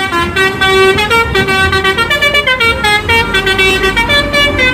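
Telolet bus horn, a multi-tone musical horn, playing a quick tune of short stepped notes.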